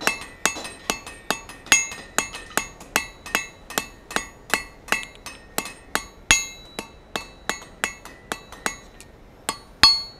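Blacksmith's hammer drawing out a square taper on a hot 5/16-inch round steel bar on an anvil. Steady blows come about two and a half a second, each with a short bright ring. There is a brief pause near the end, then the loudest blow.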